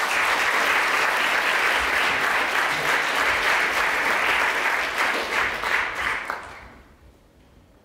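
Audience applauding with dense clapping that dies away about six seconds in.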